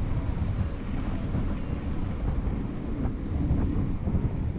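Airflow buffeting the camera microphone during a paraglider flight: a steady low rumble of wind noise.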